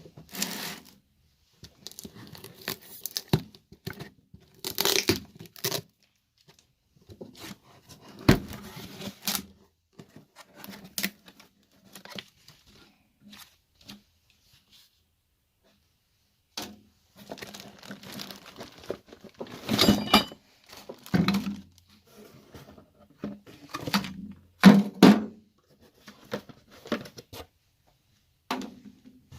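Irregular clatter, scraping and sharp knocks of hand tools and metal parts being handled while an electric winch is taken apart, with a brief pause about halfway through.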